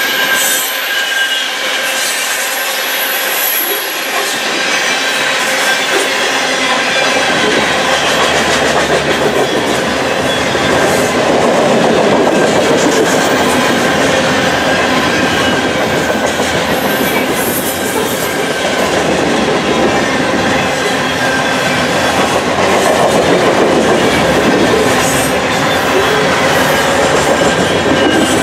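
Loaded covered hopper cars of a heavy potash train rolling past at track speed: a steady rumble and clatter of steel wheels on the rails, with thin, high wheel squeal held over it.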